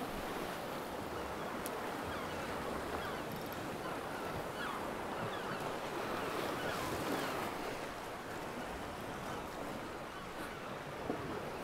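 Sea swell washing and breaking against rocks: a steady surf rush.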